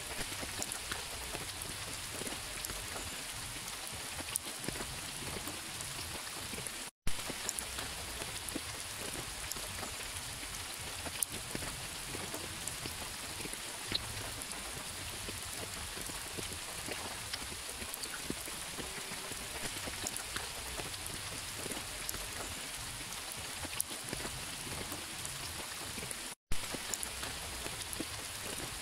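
Steady rain, a dense even patter of many small drops. The sound cuts out for an instant twice, about seven seconds in and near the end, each time followed by a sharp click.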